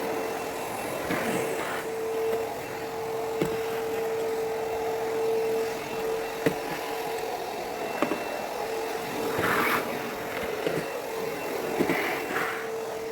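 Backpack vacuum running steadily during edge and corner vacuuming, a continuous rushing motor sound with a steady hum. A few sharp knocks of the tool against edges, and the airflow rushes louder briefly a couple of times in the second half.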